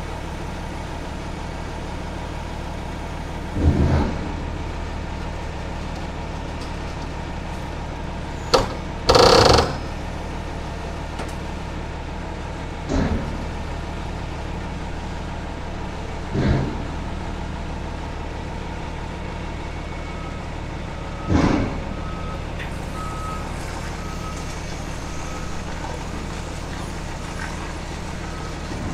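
Diesel engines idling steadily while a forklift handles a skidded aluminum coil on a flatbed trailer, with several heavy knocks and clanks, the loudest about nine seconds in. In the last several seconds the forklift's reversing alarm beeps at an even pace as it backs away.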